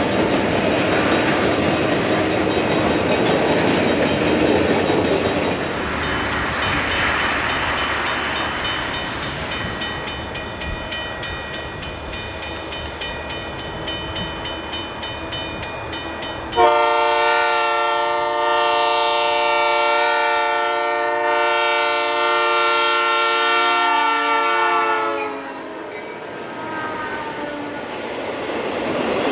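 Freight train running, then a diesel locomotive's air horn. It is faint at first, then about halfway through comes a long, loud blast of about eight seconds that starts suddenly and drops slightly in pitch as it ends. The rumble of freight cars rolling past follows.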